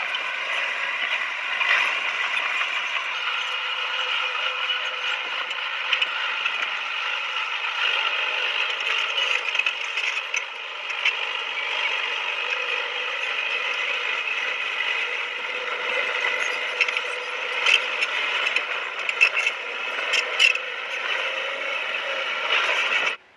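Komatsu D20P crawler bulldozer at work: a steady mechanical drone with clicking and rattling from the tracks and running gear. It cuts off suddenly near the end.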